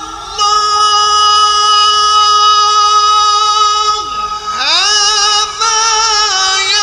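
Male Qur'an reciter chanting in the melodic mujawwad style, holding one long high note for about three and a half seconds, then swooping down and climbing back into an ornamented, wavering phrase.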